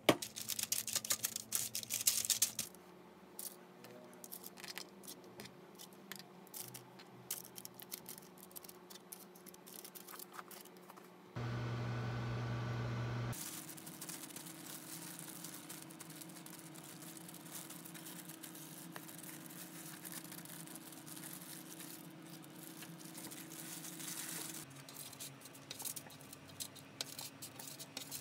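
Kitchen food-prep handling noises: scattered light clicks, taps and rustles from hands working patties and a baking tray, densest at the start and near the end. About halfway through, a loud low hum lasts about two seconds. A fainter steady hum follows for about ten seconds.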